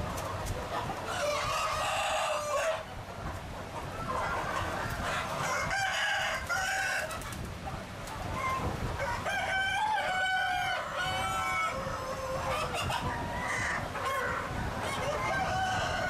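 A large, crowded flock of chickens clucking continuously, with roosters crowing several times over the clucking.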